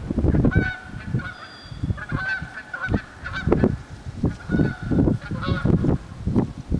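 Geese honking repeatedly, many short calls overlapping. Irregular low thumps run through it and are often the loudest thing.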